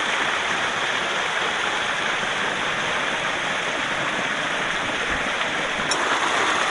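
Torio Falls rushing steadily, an even hiss of falling water.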